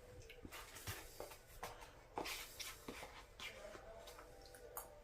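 Faint scattered taps, clicks and soft rustles, a few each second, of small objects being handled.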